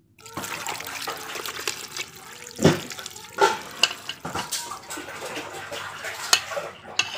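Coconut milk being poured into a cooking pot of snails, splashing steadily onto the shells. A single knock about two and a half seconds in is the loudest sound, with a few lighter clicks.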